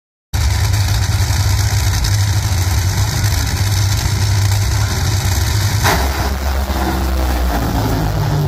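Drag racing cars' engines, very loud at the start line, with a sudden sharp burst about six seconds in as they launch down the strip.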